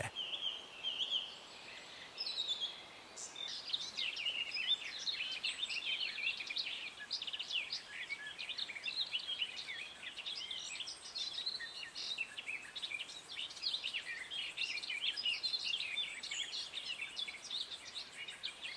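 Many small birds chirping and trilling together in a busy, continuous chorus of short high notes.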